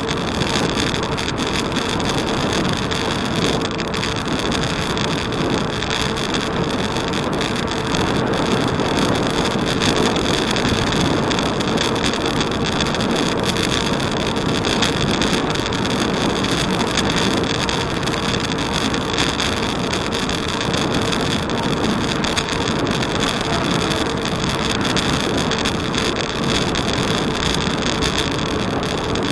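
Steady rushing noise of wind on the microphone and tyre rumble from a bicycle riding along a paved cycle path, with a faint steady hum.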